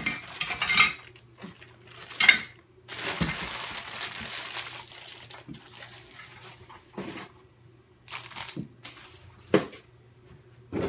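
Clear plastic bag crinkling as parts are packed back into it, followed by a few separate knocks as things are set down on the bench in the second half.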